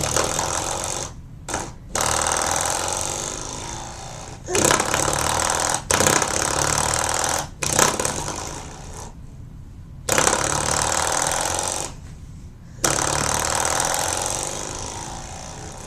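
Spring door stopper flicked again and again, each flick setting off a buzzing twang that rattles and dies away over a second or two; about seven flicks.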